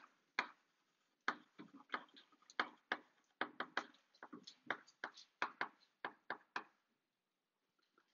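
Chalk writing on a blackboard: a quick, irregular run of sharp taps and short scratches as each letter is drawn, stopping about six and a half seconds in.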